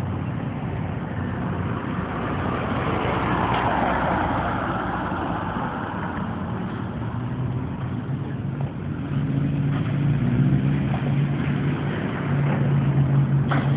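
Steady motor hum and rolling noise of a moving vehicle, with a swell about four seconds in and a low drone that grows louder in the second half.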